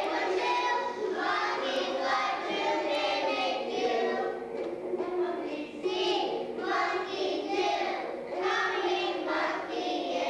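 A group of preschool children singing a song together, in phrases with short breaks between them.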